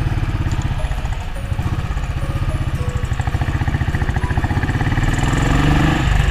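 Royal Enfield Classic 500's single-cylinder engine running on the move, with fast, even firing pulses, rising in pitch over the last couple of seconds as it accelerates.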